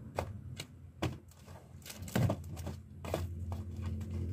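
Hands rummaging in a cardboard box of packaged goods: scattered taps and clicks as packs knock against the cardboard and each other, over a low steady hum.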